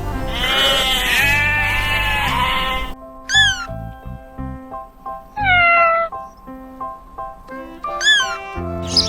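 Cat meowing three times (a short call, a longer falling call, then another short call) over background music. It is preceded by a few seconds of long, wavering animal cries.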